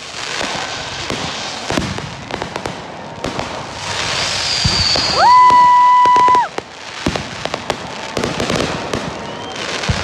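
Fireworks show: dense crackling with many sharp pops, and a high whistle falling in pitch about four seconds in. Just after five seconds a loud steady tone slides up, holds for about a second and a half, then slides down; it is the loudest sound here.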